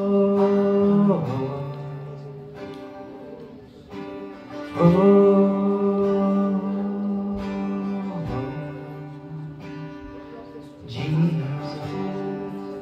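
Slow worship music: acoustic guitar strummed softly under a voice holding long wordless notes that slide down in pitch as they end.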